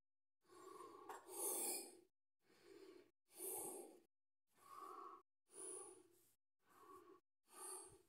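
A person's quick breaths close to the microphone, about one every second, each breath cut off to dead silence before the next.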